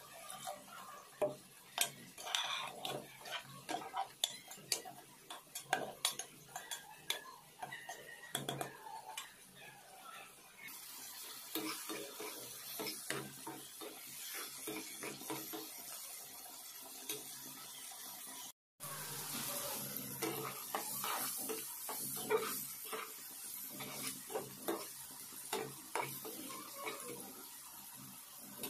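A metal spoon clinking and scraping against a cooking pot as food is stirred. From about ten seconds in there is a steady sizzle of Malabar spinach berries frying in a pan, with a spatula knocking and scraping the pan.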